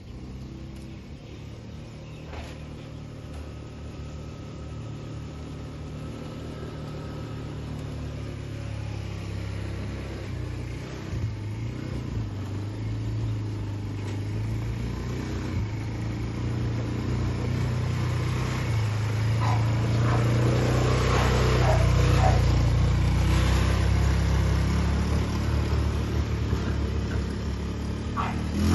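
200cc fully automatic shaft-drive ATV engine running as the quad drives over grass, growing steadily louder as it comes closer, loudest about two-thirds of the way through, then easing slightly.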